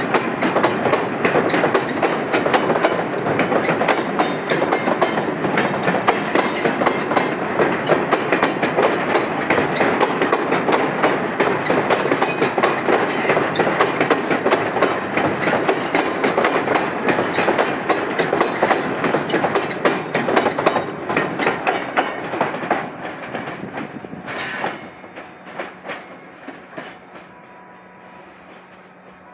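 Freight train wagons rolling past, their wheels clattering continuously over the rail joints. The clatter fades away after about 24 seconds as the end of the train goes by, with one last sharp clank.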